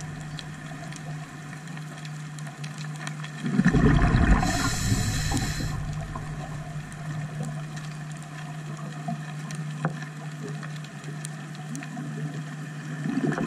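Scuba diver's exhaled bubbles rumbling and gurgling underwater for about two seconds, starting about a quarter of the way in, with a brief hiss in the middle. A steady low hum runs underneath.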